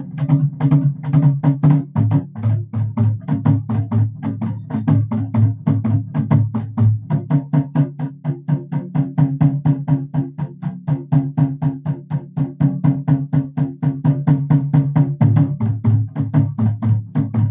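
Nagada (nagara) kettle drums played in a fast, steady rhythm, about seven strokes a second. A deeper beat joins at times.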